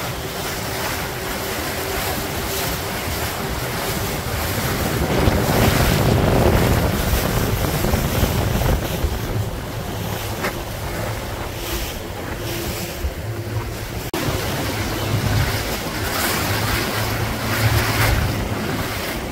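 Wind buffeting the microphone over rushing, splashing water at sea, gusting loudest about five to seven seconds in. Underneath runs a steady low engine hum from a motorboat.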